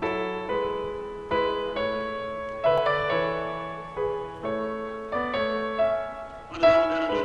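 Background piano music: a slow piece of struck notes and chords, a new one about every half second to a second, each ringing and fading.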